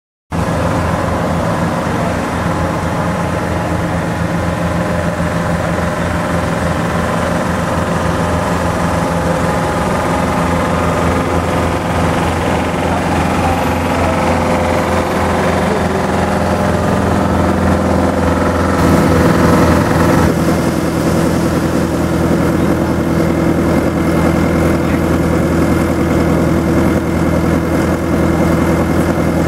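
Heavy diesel engines of a road paver and tipper truck running steadily at low revs. The engine note changes about two-thirds of the way through.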